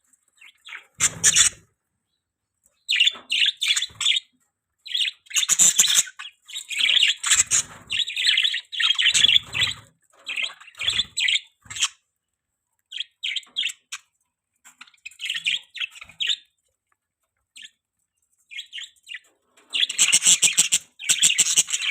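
Pet budgerigars chirping and chattering in quick bursts of short, high, rapid notes with brief pauses between, growing busier near the end.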